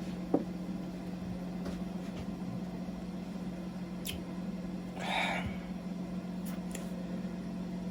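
A steady low hum, with a few faint clicks and a brief soft sound about five seconds in.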